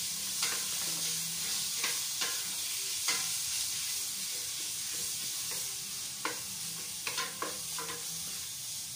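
Cubed pork belly sizzling as it fries in hot coconut oil in a stainless steel pot, while a wooden spatula stirs it, knocking and scraping against the pot several times.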